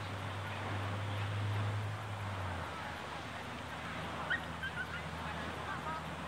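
Beach ambience: a steady low motor hum that drops away and changes pitch a little after two seconds in, over a light steady hiss, with faint short bird-like chirps.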